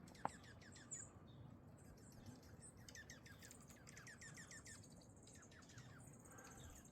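Small songbirds at a feeder chirping faintly: a quick, busy run of short descending chirps, densest in the middle of the stretch, with a single small click just after it begins.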